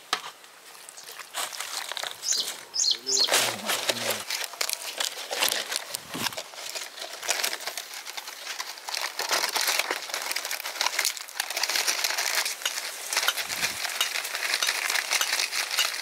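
Dry palm leaves crackling and crinkling in a dense, irregular stream, thickening about halfway through.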